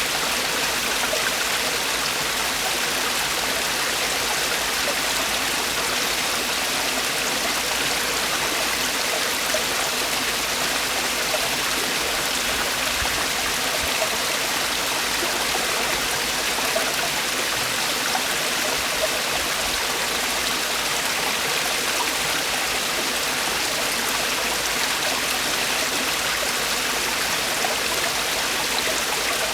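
Mountain stream water falling and rushing over rocks in a valley, a steady, even splashing.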